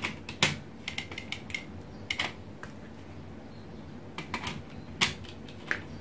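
Scattered small clicks and taps from hands handling wire leads at the coil terminals of relay sockets, with the loudest clicks about half a second and five seconds in.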